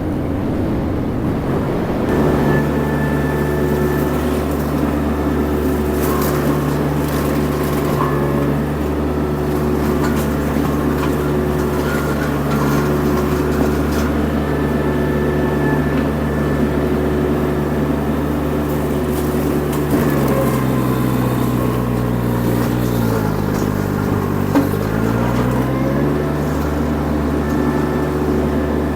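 The Baumalight TRL620D mini skid steer's Kubota diesel engine running steadily at high revs with the mulcher attached. About twenty seconds in, the engine pulls down in pitch for several seconds, then climbs back to its steady speed.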